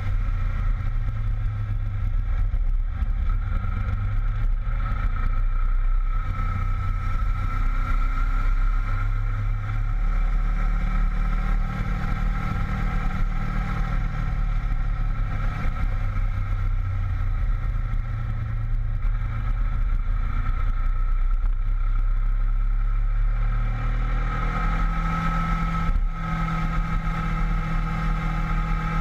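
Honda VFR800 V-TEC's V4 engine running under way, its note rising and falling several times with throttle and gear changes, over a steady low wind rumble.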